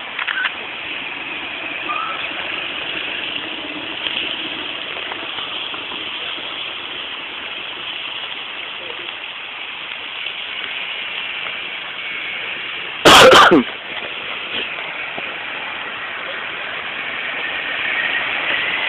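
Steady outdoor background noise picked up by a phone's microphone, with faint voices, and one loud, distorted burst lasting about half a second, about thirteen seconds in.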